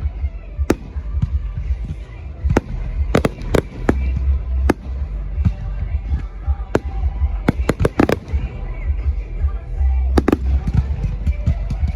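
Fireworks display: an irregular run of sharp bangs from bursting shells, bunching into quick clusters around eight seconds in and again near ten seconds, over a continuous deep rumble of booms. Show music plays underneath.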